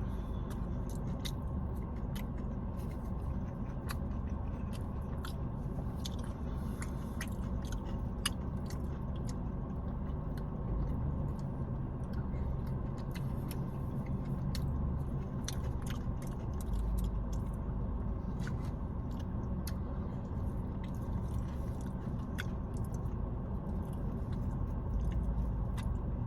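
Close-up eating sounds: chewing and biting into a KFC Famous Bowl of chicken, mashed potatoes, gravy and cheese, with many small wet clicks and smacks over a steady low hum.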